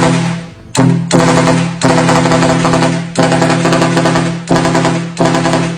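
Truck's pair of big trumpet air horns blasting loudly in a string of blasts, each held a second or so, breaking off and starting again about six times.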